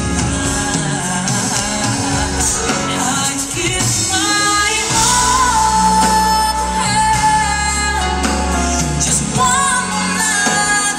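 A woman singing a slow pop ballad live into a microphone over band accompaniment with a steady bass, holding one long note from about four seconds in to about eight seconds in.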